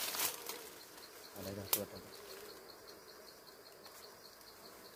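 A disturbed colony of dwarf honeybees buzzing around their exposed comb, with leaves and branches rustling at the start and one sharp click a little under two seconds in.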